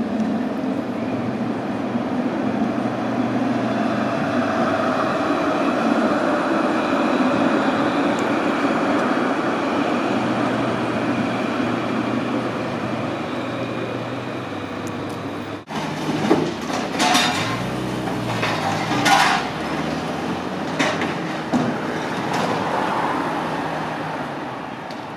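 Modern low-floor electric tram running past on a street track: a steady rumble of wheels and motors that swells to its loudest a few seconds in, with a whine that falls in pitch, then fades. About two-thirds of the way through the sound cuts to another tram approaching, with several sharp knocks and clicks over the street noise.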